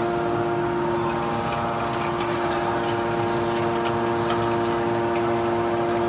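Hydraulic power unit of a 500-ton automatic scrap metal baler running: the electric motor and pump give a steady hum made of several fixed tones, with light ticks and clicks scattered over it.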